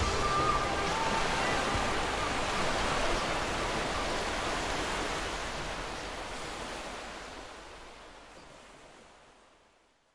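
Steady rushing of water, like a waterfall or surf, fading out slowly to silence over the last several seconds; faint music dies away in the first moments.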